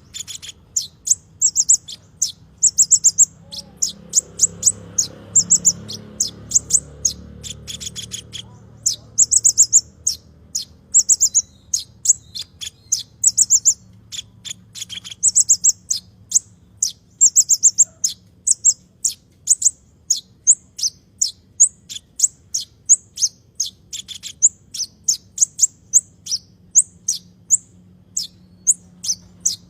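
A small songbird, the 'konin' kept by Indonesian bird-keepers, singing a long series of very high, sharp chirps. In the first half some come in quick rattling clusters; later they come singly, about two a second.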